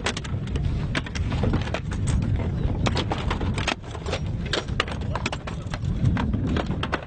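Irregular knocks and clatter of crates being handled and opened, over a low rumble.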